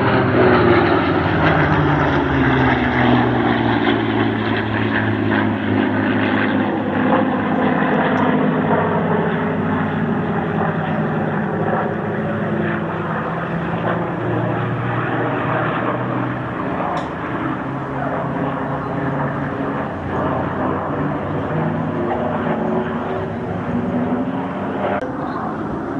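Piston engines of low-flying WWII warbirds, led by a P-38 Lightning, droning steadily as they fly past. The engine note slides down in pitch as they pass early on, rises again as they come round, then falls once more.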